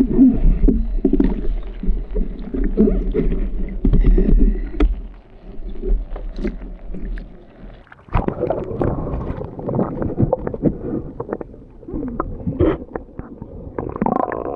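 Water sloshing and gurgling around a camera held at and under the water's surface, muffled and low. It fades about a third of the way in, then comes back about halfway through as bubbly underwater noise with small clicks.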